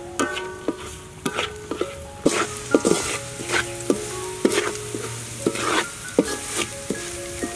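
Wooden spatula scraping and knocking against a large metal wok, about two strokes a second, as sliced garlic and chilies are stir-fried in oil. Each stroke sets the wok ringing briefly, over a light sizzle.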